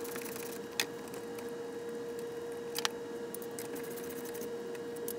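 A steady hum under two light clicks of a socket wrench, about a second in and near three seconds, as it works the bolts holding the power steering cooler to the radiator.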